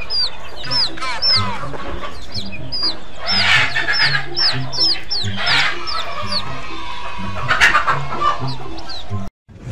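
A group of chicks peeping steadily, with many short, high calls that slide downward in pitch, over background music. The sound cuts off suddenly near the end.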